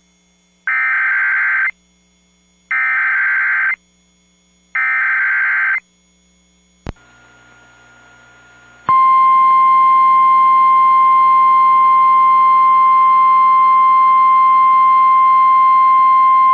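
NOAA Weather Radio emergency alert signal: three bursts of the SAME digital header, each a harsh data screech lasting about a second with a second's gap between them. About three seconds later the steady 1050 Hz NWS warning alarm tone starts and holds. Together they mark the start of a new tornado warning broadcast.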